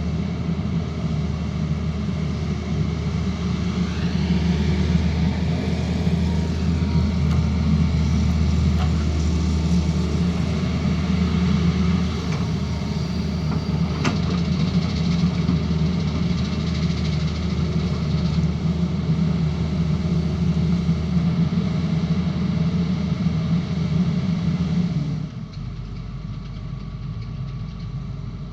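Tata Hitachi excavator's diesel engine running steadily with a deep hum, dropping to a quieter, lower hum near the end.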